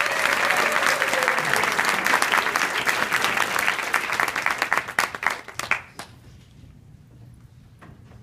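Audience applauding, with dense clapping that thins out and stops about six seconds in.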